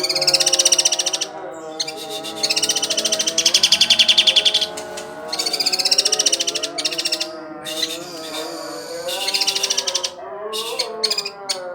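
Sooty-headed bulbul (kutilang) singing in four loud bursts of fast, rapidly repeated notes, each lasting a second or two, with background music underneath.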